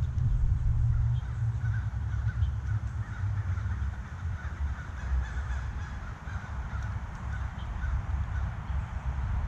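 Birds calling around a backyard feeder, many short calls close together, over a steady low rumble.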